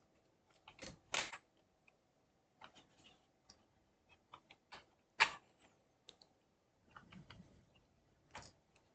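Scattered plastic clicks and snaps as a laptop's back cover is pried open and its clips pop loose, the sharpest snap about five seconds in.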